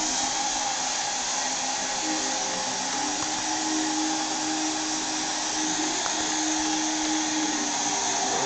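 Hair dryer running steadily, a continuous rush of blown air with a faint hum.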